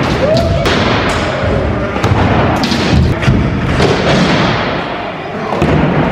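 Stunt scooter riding on wooden skatepark ramps: wheels rolling, with irregular knocks and thuds from landings and deck impacts.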